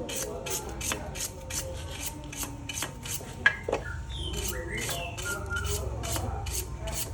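Rhythmic rasping strokes, about three a second, like filing or sanding, with a single sharp knock about three and a half seconds in. Voices talk faintly behind.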